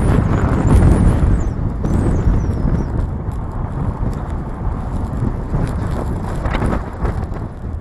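Strong wind buffeting the microphone in gusts, a heavy low rumble. A faint wavering high whistle comes and goes during the first three seconds.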